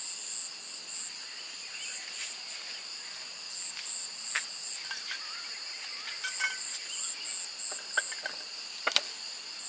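Steady high-pitched chorus of insects, crickets among them, with a pulsing chirp in it. A few light clicks and knocks come through over it in the second half, the sharpest near the end.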